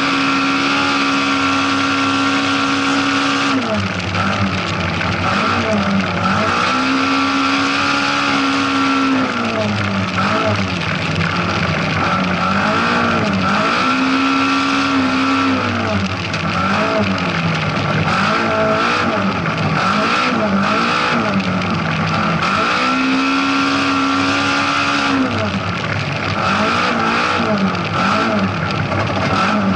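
Rally car engine heard from inside the cockpit, driven hard on a dirt stage. Its revs hold high and steady for a few seconds at a time, then drop and climb again in quick swings through the corners.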